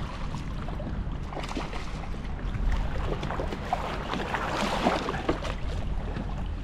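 Water splashing and sloshing as a hooked snook thrashes at the surface on light spinning tackle, with the crackle of the splashes busiest in the middle. A low wind rumble on the microphone runs underneath.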